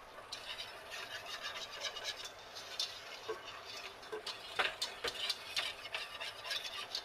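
Wire whisk stirring flour and butter in a stainless steel saucepan, a steady scraping with light clinks of the wires against the pan, a few sharper clinks a little past the middle: a roux being worked together.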